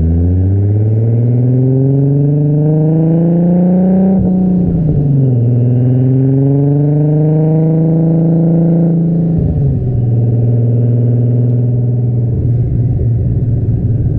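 Turbocharged 2JZ-GTE inline-six of a built Toyota Supra under hard acceleration. The revs climb for about four seconds and drop sharply at an upshift, then climb again and level off. They fall once more about nine and a half seconds in and hold fairly steady after that.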